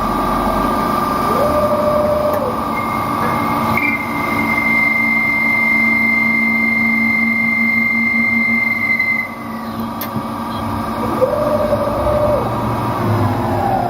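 CK6440 slant-bed CNC lathe running, with a steady motor whine. A higher tone holds for several seconds, and shorter tones twice ramp up, hold and ramp back down. Near the end the whine falls in pitch as the machine winds down.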